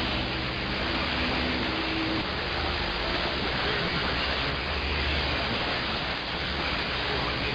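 Steady static hiss from a CB radio receiver in AM mode on 27.025 MHz (CB channel 6), with no one talking. A couple of low steady tones sound over it and stop about two seconds in.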